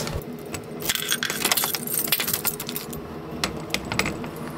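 A bunch of keys jangling in a hand, with a few separate sharp clicks near the end as the door is worked.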